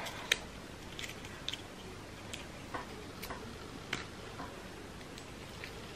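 Scattered small clicks and faint rustles of hands unwrapping a new iPhone charging cable from its tie and packaging.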